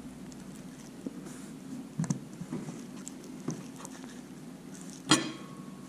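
A metal fork picking through roasted fish on a china plate: light scrapes and taps, then a sharp clink of the fork against the plate about five seconds in that rings briefly.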